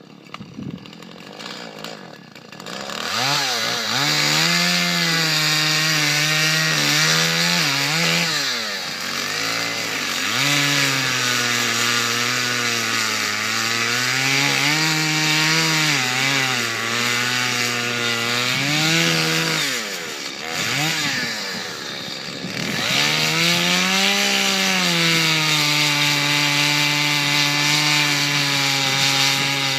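Chainsaw coming up to speed in the first few seconds, then running with its pitch repeatedly rising and falling as it is throttled and loaded in the wood. It dips about two-thirds of the way in, then holds a steady high pitch near the end.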